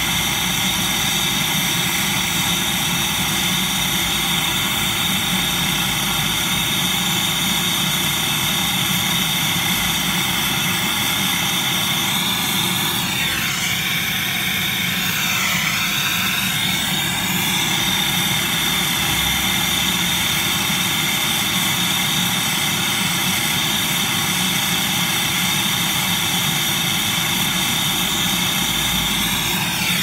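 Gas brazing torch burning with a steady rushing hiss as a copper line is brazed onto a refrigerator compressor stub. From about 13 to 17 seconds in, the pitch of the sound wavers and bends, then settles again.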